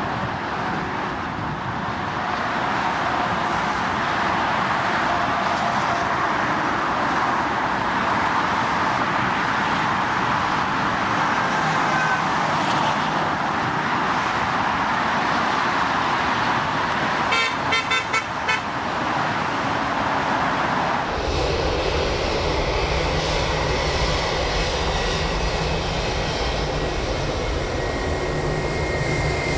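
Jet airliner engines running: a steady rush of engine noise, broken by a short quick run of sharp pulses about two-thirds of the way through, then abruptly a deeper rumble with a steady high turbine whine near the end.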